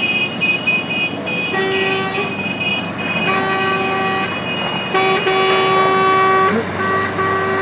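Horns honking in several long held blasts, one after another.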